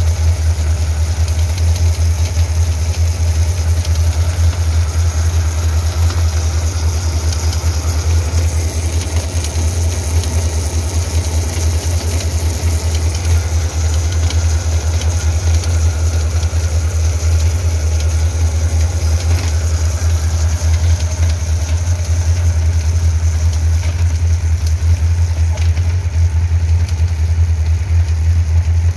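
Yamaha FZS1000's inline-four engine running steadily with the drive chain turning, and an abnormal chain-area noise that was traced to a damaged disc-side wheel bearing, an over-worn sprocket, a stiff chain link and a missing chain-guide rubber.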